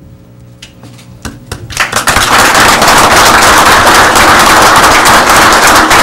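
Audience applauding: a few scattered claps, then full applause breaking out about two seconds in and going on strongly.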